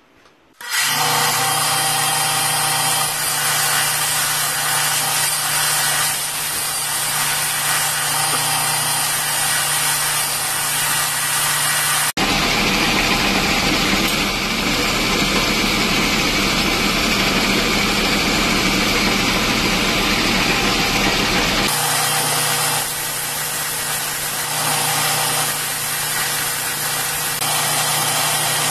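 Knife-maker's belt grinder running steadily with a constant motor hum, starting abruptly about a second in. From about 12 to 22 s the sound turns harsher and rougher as a forged steel blade is worked against the abrasive belt, then it settles back to the grinder's plain running sound.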